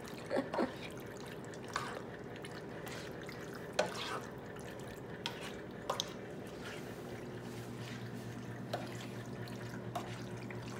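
A black spoon stirring penne in thick tomato sauce in a dark pan: soft wet squelching with a few scattered clicks of the spoon against the pan. A low steady hum underneath gets louder about seven seconds in.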